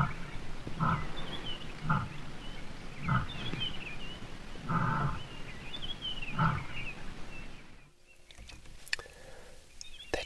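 A lion's roaring bout trailing off in its closing deep grunts: about six of them, spaced further and further apart, stopping about two-thirds of the way in.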